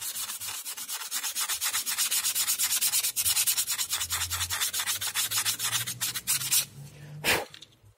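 Fine 400-grit sandpaper rubbed by hand over Depron foam at a model wing's leading edge, in quick, even back-and-forth strokes that stop about six and a half seconds in. One short handling sound follows near the end.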